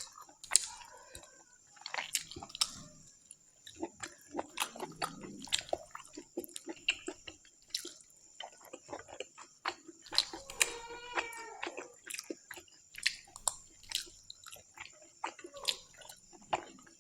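Wet chewing and lip-smacking of a person eating pork curry: many sharp, wet clicks and smacks. A brief pitched sound stands out about ten seconds in.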